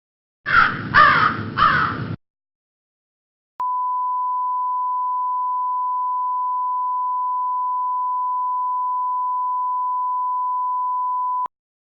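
Crow cawing three times, the comedy sound effect for an awkward, flat moment. About a second later a steady 1 kHz censor beep starts and holds for about eight seconds before cutting off.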